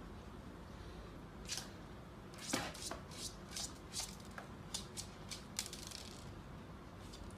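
Faint, irregular sharp clicks and rustles, about a dozen, starting about one and a half seconds in and stopping near the end.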